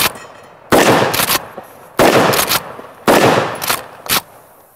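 Remington Tac-14 12-gauge pump-action firing in quick succession: three loud shots about a second apart, each followed by a couple of quick sharp knocks, with a fourth shot right at the end.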